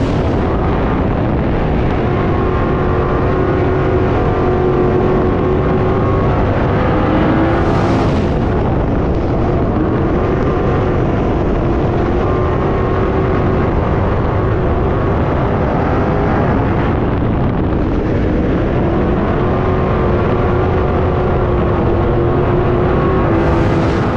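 Dirt-track race car's engine running hard under racing load, heard from inside the cockpit. Its pitch falls and rises slightly as the throttle changes, with brief swells of hiss about a third of the way in and near the end.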